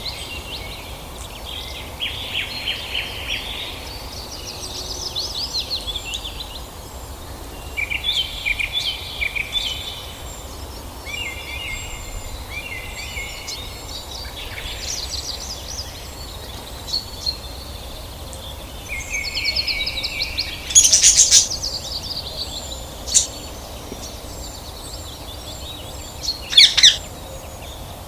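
Pet budgerigars and a young parrot chirping and chattering in quick warbling phrases, with two louder, sharp squawks, one about three quarters of the way through and one near the end.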